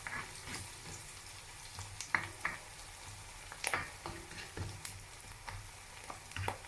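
Ginger, onion and garlic sautéing in oil in a pot: a faint sizzle, with now and then a short scrape or tap of a utensil stirring.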